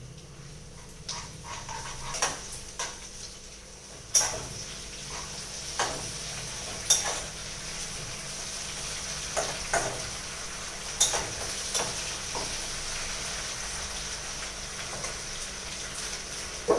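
Onion, tomato and ginger-garlic paste frying in a pot with a steady sizzle. A spatula stirs through it and clicks against the pan now and then.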